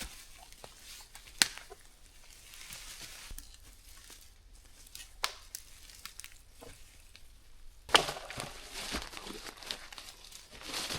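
Dry deadwood branches snapping as they are broken off by hand: single sharp cracks a little after a second in and about five seconds in, then the loudest crack about eight seconds in, followed by crackling and rustling of twigs and brush.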